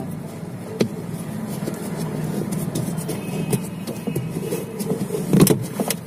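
Rubber drive belt being worked by hand onto a washing machine gearbox pulley as the pulley is turned, with a sharp click about a second in and another near the end. A steady low hum runs underneath.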